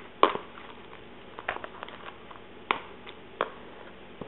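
Oat-and-strawberry mix being stirred in a clear plastic container, with soft rustling and a handful of sharp taps and clicks against the plastic, the loudest just after the start.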